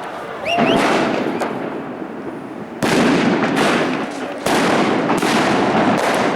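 Fireworks going off in dense, loud crackling volleys that start suddenly three times: about half a second in, near three seconds and at about four and a half seconds. A short rising whistle sounds at the first volley.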